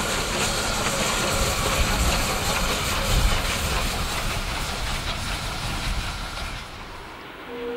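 Steam locomotive 423.0145 running past with its train: a steady low rumble of wheels on the rails and a hiss of steam, fading away near the end. A steady horn-like tone starts just before the end.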